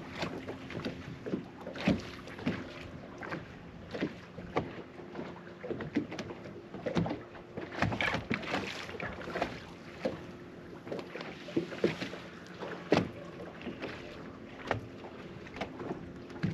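Minn Kota electric trolling motor humming faintly, cutting in and out several times as it is steered, with water lapping against the boat's hull and scattered small knocks.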